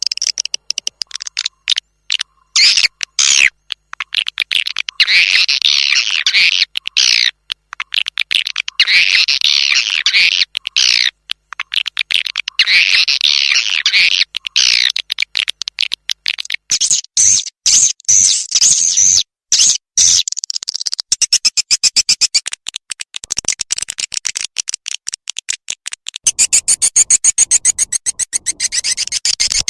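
Swiftlet lure recording: rapid high chirping and twittering calls of swiftlets, coming in bursts of about two seconds, with a fast, even chattering near the end.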